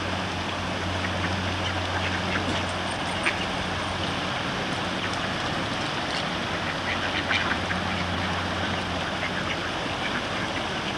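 Mallard ducks quacking now and then over the steady rush of a shallow stream.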